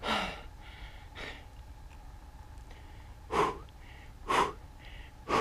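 A man breathing hard through his mouth, about five sharp breaths, with a pause of a couple of seconds after the first two. He is winded and catching his breath.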